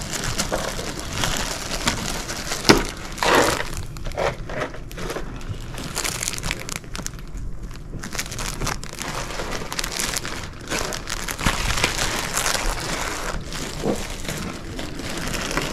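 Plastic zip-top bags crinkling and rustling as a hand picks through and shifts them on a table, in irregular bursts, the loudest about three seconds in.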